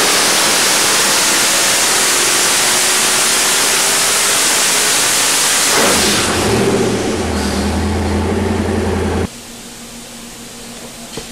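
Twin-turbocharged Ford 428 Windsor V8 on an engine dyno at full throttle under load. About six seconds in the pull ends: the revs fall away and the engine settles to a low idle. A little after nine seconds the engine sound cuts off abruptly, leaving a much quieter background.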